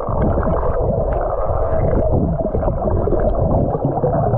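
Muffled underwater noise through a submerged camera's microphone: water rushing and bubbling, with the high end cut off, as a swimmer dives and is followed underwater.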